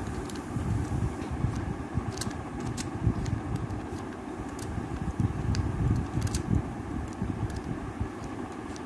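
Plastic tiles of a sliding 15-puzzle giving faint scattered clicks as they are pushed, over a louder low rumbling background noise.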